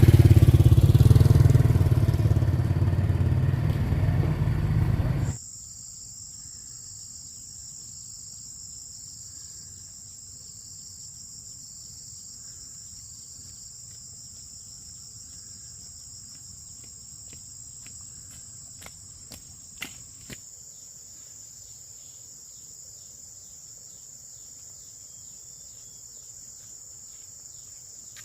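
A motor engine running loudly for about five seconds, then cutting off suddenly. After that comes a steady, high-pitched insect chirring, with a few faint clicks about twenty seconds in.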